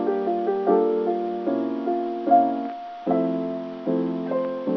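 Background piano music, slow chords and notes, each struck and left to fade.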